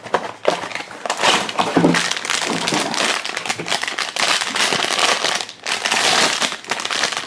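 Thin foil blind bag crinkling and tearing as hands open it: a dense, crackly rustle with a brief lull about five and a half seconds in.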